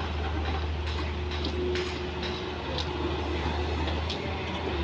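Daewoo hydraulic excavator's diesel engine running steadily under load as the machine swings a loaded bucket, with a brief held whine near the middle and scattered light clicks.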